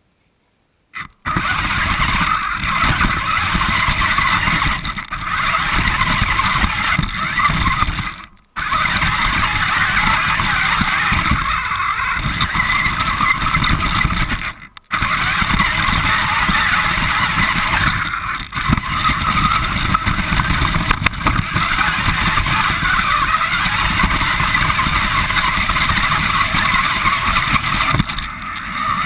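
Radio-controlled car driving, heard up close from a camera mounted on it: a loud, steady rushing running noise that starts about a second in and drops out briefly twice.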